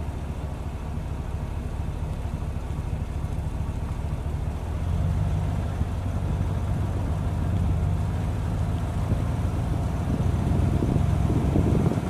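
Car driving on a road: a steady, low engine and road rumble that grows a little louder about five seconds in.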